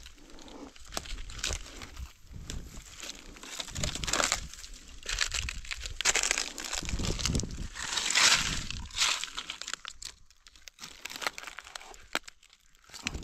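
Dry leaf litter and grass rustling and crinkling as gloved hands push through it around mushrooms in the ground, in uneven bursts that ease off briefly near the end.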